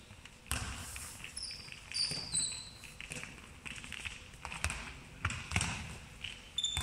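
Handballs bouncing and thudding on a wooden sports-hall floor, irregular knocks about a second apart, with sneakers squeaking briefly on the floor in between; the large hall echoes.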